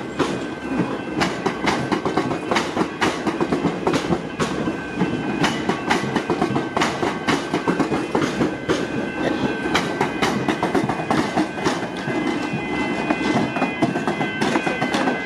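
Electric suburban train passing over the tram-track crossing, its wheels clacking over the rail joints and crossing diamonds in a long run of sharp, irregular clicks, over a steady rumble with a faint high tone.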